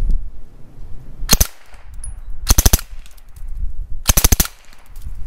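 Silenced Sten Mk4(S) submachine gun with its ported barrel and integral suppressor firing subsonic 9mm in three short full-auto bursts. The first burst, about a second in, is only a few shots; the next two, near the middle and near the end, are each a rapid string of about half a dozen shots.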